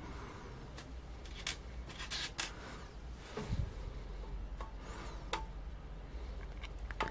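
Hands handling the pump head of a small airbrush compressor: scattered clicks and rubbing of plastic and metal parts, with a soft knock about three and a half seconds in.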